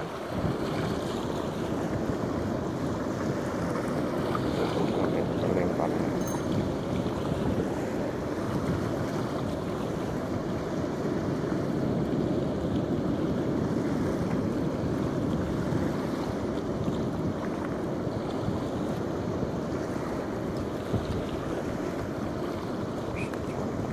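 Steady wind noise on the microphone over small waves washing onto a sandy shore.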